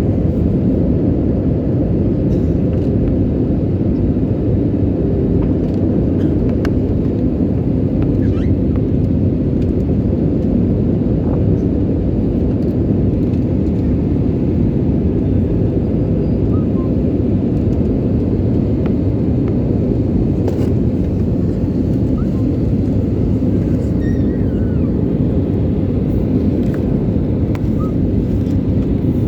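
Airliner cabin noise: the steady, loud drone of the engines and rushing air heard from inside the passenger cabin, with a faint steady hum under it.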